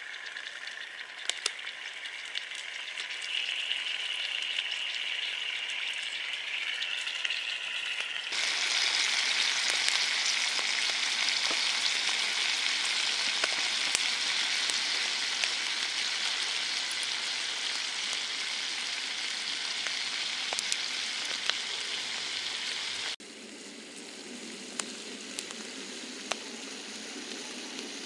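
Bacon sizzling in a frying pan over an open wood fire: a steady hiss with scattered sharp pops. It gets louder about eight seconds in and drops suddenly about five seconds before the end.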